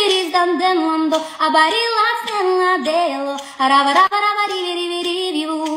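A solo female voice singing wordless melodic runs, the pitch gliding up and down between notes, with no bass or drums under it.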